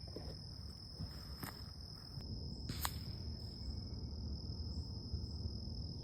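Steady high-pitched drone of insects, with a low background rumble and a few short sharp clicks, the sharpest about three seconds in.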